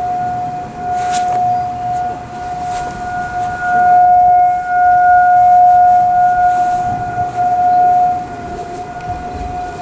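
Federal Signal 2001-SRN electronic outdoor warning sirens sounding a steady tone at one constant pitch, the volume swelling and fading as the sirens rotate.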